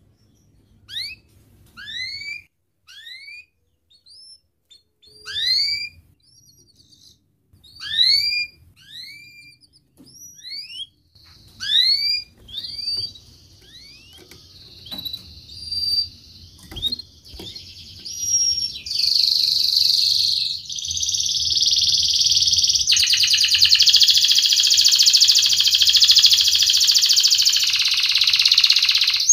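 Domestic canary singing: at first a series of short, separate chirps that sweep upward in pitch, then, about halfway through, a loud continuous song that runs into a long, very fast rattling trill.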